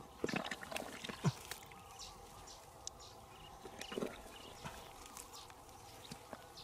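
Hands digging and scraping in wet mud and grass at the mouth of a hole: irregular crackles, rustles and soft knocks, a little louder about four seconds in.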